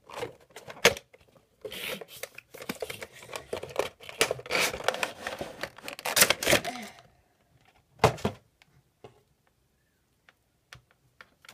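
Cardboard box and clear plastic insert of a Funko Pop figure being opened by hand: rustling, tearing and crinkling for about seven seconds, with a sharp click near the start. A short rustle about eight seconds in is followed by only faint clicks.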